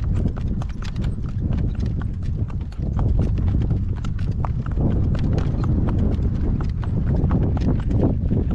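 A two-year-old driving horse's hooves clip-clopping in a steady stream of sharp knocks, with strong wind buffeting the microphone in a continuous low rumble.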